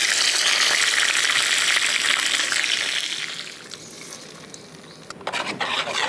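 Tempering of mustard seeds, red chillies and curry leaves sizzling loudly in hot oil, dying down after about three seconds. Near the end a spoon scrapes and stirs in the pan.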